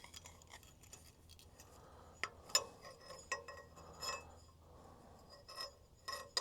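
Light, scattered metallic clicks and clinks of hand tools against small metal parts as a makeshift throttle-cable holder is worked loose.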